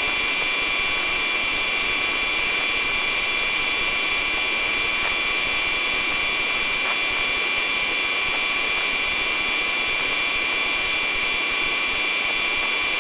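Police helicopter's turbine engine and cabin noise, a steady, unchanging whine with a high hiss and several fixed high-pitched tones.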